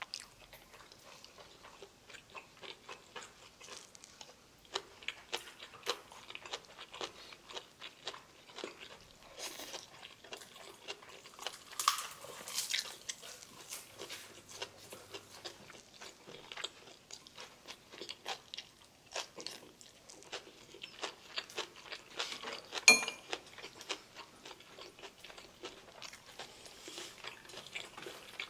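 Close-miked eating sounds: chewing and crunching of food, with small clicks of metal chopsticks against dishes. One sharp, ringing clink stands out late on.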